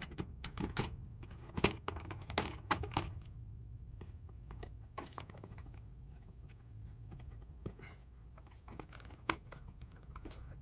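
Handling noise: a quick run of sharp clicks and knocks in the first three seconds, then a few single clicks, over a low steady hum.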